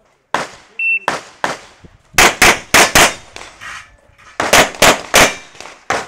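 Semi-automatic pistol fired in rapid strings during an IPSC Production-division course of fire: about a dozen sharp shots, many in quick pairs, louder from about two seconds in, with a short break between strings near the four-second mark.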